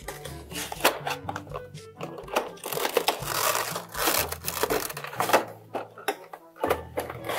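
Background music with a steady bass line over clear plastic packaging being handled: clicks and rustling as a clear plastic box is opened and its inner tray slid out. The rustling is longest about three to four seconds in and again near the end.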